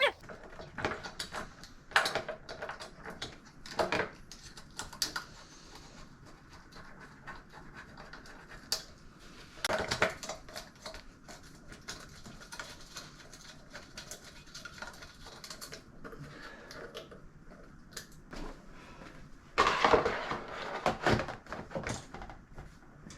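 Intermittent clinks and knocks of tools and metal parts being handled during hands-on bike assembly, with a busier, louder run of clatter about twenty seconds in.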